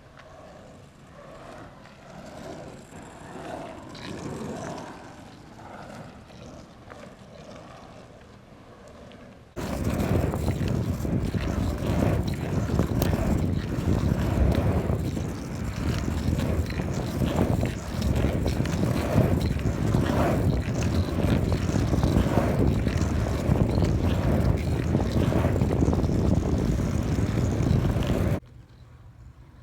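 Surfskate wheels rolling over pavement with some wind on the microphone. The loud rolling rumble with rapid clicks starts suddenly about ten seconds in and stops suddenly near the end, after a quieter first stretch.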